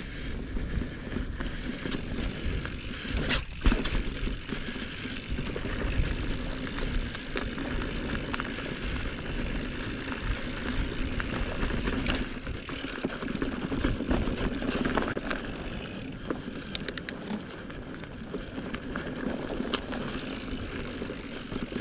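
Mountain bike being ridden along a dirt singletrack trail: knobby tyres rolling over tacky dirt, with the bike rattling and scattered sharp knocks and clatter over trail bumps, one loud knock about three and a half seconds in.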